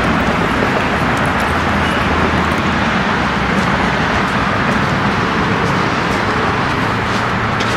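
Steady, even rush of road traffic noise with a low hum beneath it, no single vehicle standing out.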